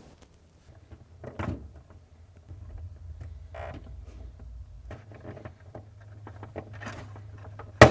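Plastic wiring-harness connectors on a refrigerator ice maker being unplugged by hand: small clicks and rustles of the plastic as the locking tabs are pressed, with one sharp click near the end, over a steady low hum.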